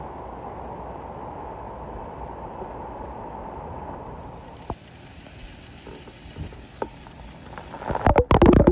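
Water spraying from a Rain-O-Mat full-circle brass ball-drive sprinkler head, a steady hiss. About halfway the hiss drops and turns thinner and higher, with a couple of light ticks; near the end a burst of loud, irregular knocking takes over.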